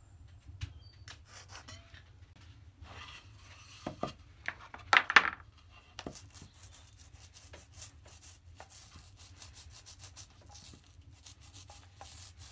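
Pencil and combination square worked over a birch plywood panel, with a few loud knocks about four to five seconds in. From about six seconds, a small foam roller rubs glue across the plywood, a sticky rolling sound with many small ticks.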